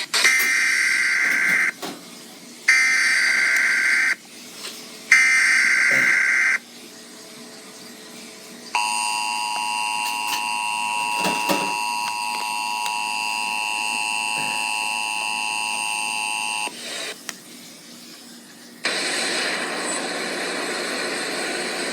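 Emergency Alert System tones. First come three screeching digital header data bursts of about a second and a half each, then a steady two-tone attention signal held for about eight seconds. Near the end a burst of hiss begins.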